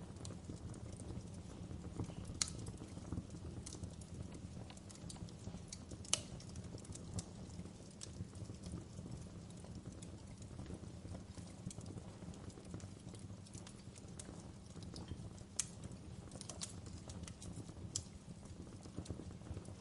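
Wood fire crackling in a fireplace: irregular sharp pops and snaps over a steady low rumble, with a few louder pops.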